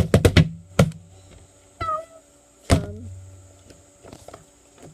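Homemade slime, stiffened from being worked, being squeezed and slapped by hand: a rapid run of sharp clicks at the start, a short squeak about two seconds in, and one loud thunk a little later.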